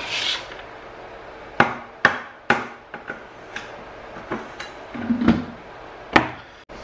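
A short scrape, then a string of sharp, irregular knocks and taps, about eight in all with one duller thud near the end, from clay scraps and hand tools being handled while leftover ceramic clay is cleared away.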